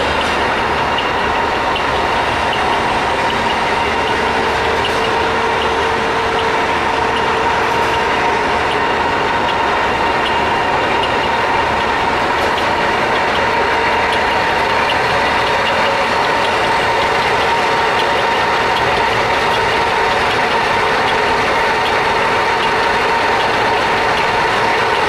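Knuth DL550B lathe running with its spindle gears engaged: a steady mechanical gear noise with a constant whine, an abnormal sound from the headstock gearing in the owner's view.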